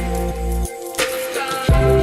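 Background music with a steady beat and held synth notes; the bass drops out for about a second midway, then comes back.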